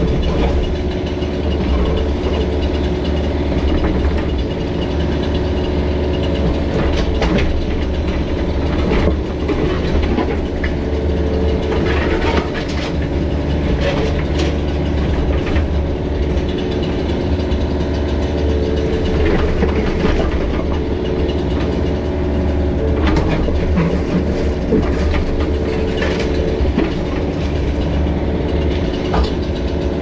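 Mini excavator's diesel engine running steadily, with scattered clanks and scrapes as the bucket breaks up and moves slabs of concrete driveway.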